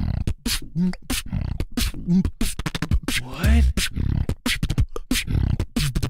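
Live beatbox freestyle: a quick beat of sharp vocal snares and hi-hats over deep bass kicks, with a rising sweep about three seconds in.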